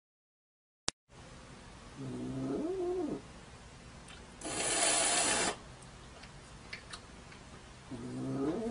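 A domestic cat vocalizing at something it sees outside the window: a drawn-out call about two seconds in, a second-long rush of noise in the middle, and another longer call starting near the end.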